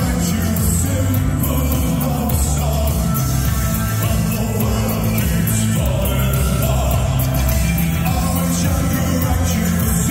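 Post-punk/new wave band playing live and loud, with singing over a heavy, steady bass line.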